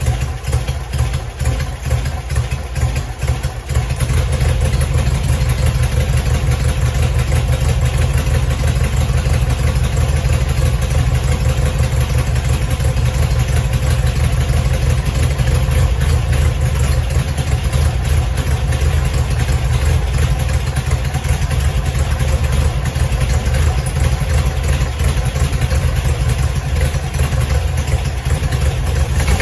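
A 1966 VW Beetle's 1680cc air-cooled flat-four with dual EMPI carburettors is running. It is uneven for the first few seconds, then settles into a steady idle.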